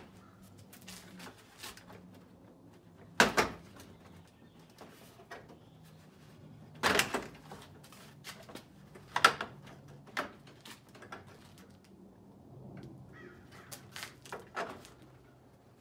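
Plastic front grille of a third-generation Toyota Tacoma being wiggled and pulled loose by hand: a handful of sharp plastic snaps and knocks, loudest about three, seven and nine seconds in, with light rattling and handling noise between.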